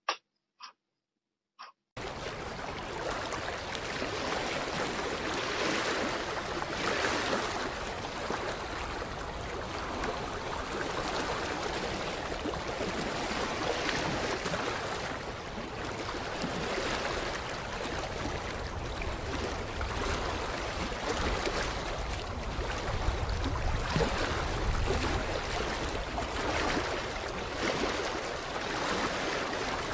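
Water lapping at a creek shoreline: a continuous wash that swells and eases every few seconds, with a low rumble underneath in the second half. A brief bit of voice comes in the first two seconds.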